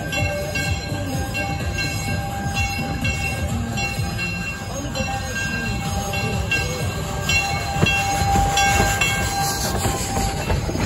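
Narrow-gauge steam locomotive running slowly past with its passenger cars, its bell ringing in a steady rhythm about twice a second over the rumble of the train.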